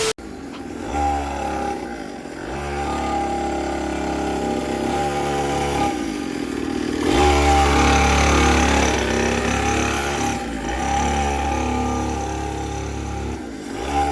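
Small 50cc pocket quad engine running while being ridden, its pitch rising and falling as the throttle is opened and eased off, loudest about halfway through.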